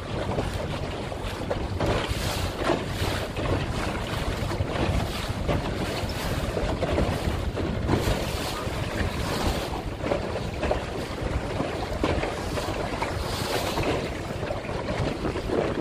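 Wind buffeting the microphone on a boat under way on a river, over a steady low rumble and the wash of choppy water, with frequent gusts.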